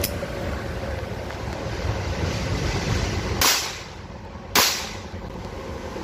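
Two shots from a Ruger SR22 .22 LR pistol, a little over a second apart.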